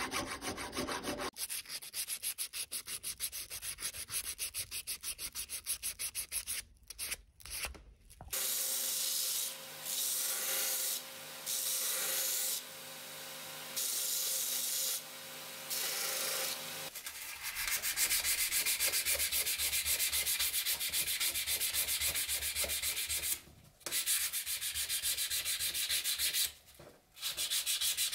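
Hand file rasping in quick strokes through the slot of a metal sword guard. About eight seconds in a belt grinder takes over, its abrasive belt grinding metal in several passes broken by short lifts. From about seventeen seconds in, a small metal fitting is rubbed rapidly back and forth on an abrasive surface, pausing twice briefly.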